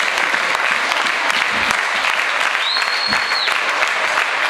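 Audience applauding, a dense crackle of many hands clapping. About three seconds in, one long shrill whistle rises above the clapping.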